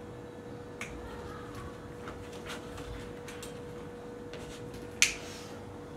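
A few faint knocks and shuffles as an actor moves props about a wooden stage, then one loud, sharp snap about five seconds in, over a faint steady hum.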